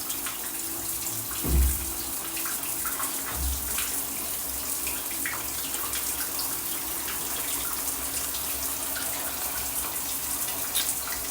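Tap water running steadily into a sink, with a single low thump about a second and a half in.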